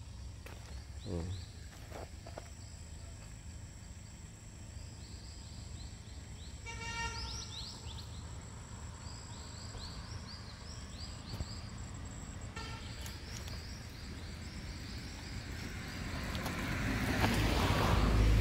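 Forest ambience: a steady high insect drone under a bird's rapid run of short repeated chirps. A distant horn-like toot sounds about seven seconds in, and rustling with footstep noise builds up near the end.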